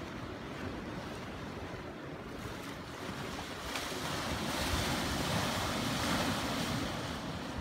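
Sea surf washing against a rocky shore, swelling louder about halfway through as a wave breaks and foams along the rocks, with some wind on the microphone.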